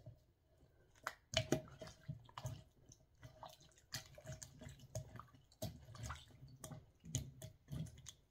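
Silicone spatula stirring a wet beef stew in a pot: soft squelching and sloshing with irregular light knocks and scrapes against the pot, the loudest about a second and a half in.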